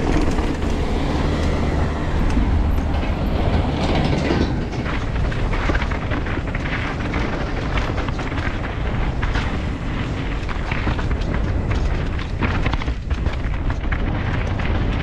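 Mountain bike riding fast downhill over a dirt trail: steady tyre rumble on the ground with dense clicking and rattling from the chain and frame over bumps, and a heavy low rumble.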